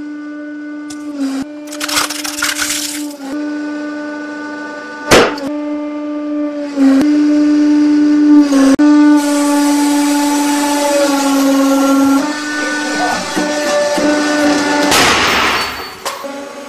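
Hydraulic press's pump humming steadily, shifting slightly in pitch now and then, while objects are crushed under the ram. A single sharp crack comes about five seconds in, then a long stretch of hissing, crackling noise, and a louder rush of noise near the end.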